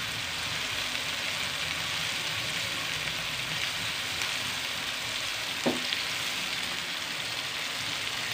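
Chopped onions, tomatoes and green chillies sizzling steadily in ghee in a nonstick frying pan, stirred with a wooden spatula. There is one short knock about two-thirds of the way in.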